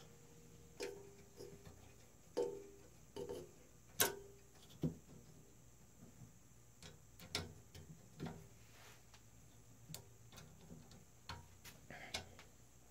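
Irregular light clicks and taps of small screws and washers being handled against a 3D-printed plastic motor mount and steel rods, a few with a short metallic ring, the loudest about four seconds in.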